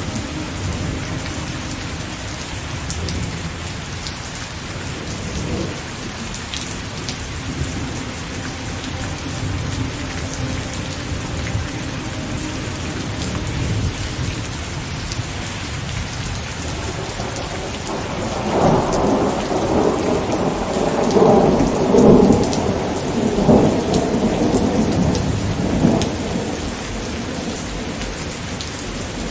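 Steady rain falling, with a long rumble of thunder that swells up about two-thirds of the way in, peaks, and rolls away near the end.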